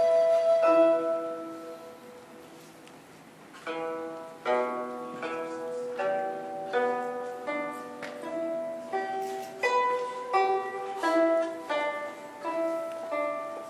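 Guzheng plucking a slow melody of single notes, each ringing and fading, which starts after a short pause about three and a half seconds in. A held note dies away about a second in.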